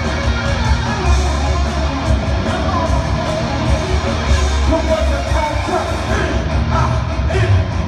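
Loud live rock music with a singer, heard from among a concert audience, with a heavy bass beat.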